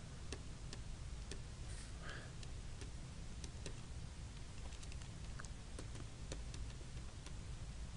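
Faint, irregular clicks and taps of a stylus writing on a tablet screen, over a steady background hiss.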